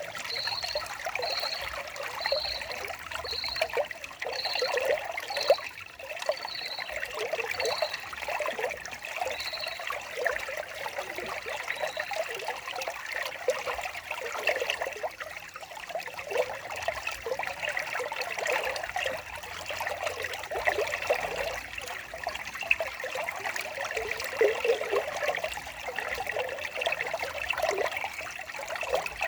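Stream water trickling and splashing steadily. Over the first ten seconds a short high chirp repeats about once a second, then stops.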